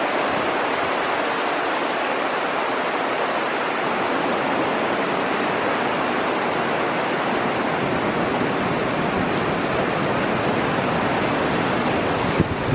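Steady rushing water, a dense even roar of flowing water, with a couple of small knocks right at the end.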